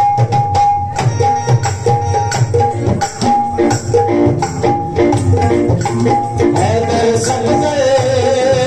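Qawwali ensemble playing: a harmonium melody of short repeated notes over a steady hand-drum rhythm. A singing voice with a wavering pitch comes in about two-thirds of the way through.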